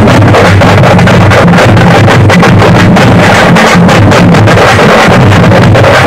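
A troupe of large two-headed drums beaten with sticks, pounding out a fast, unbroken beat together. It is recorded so loud that the sound is overloaded and distorted.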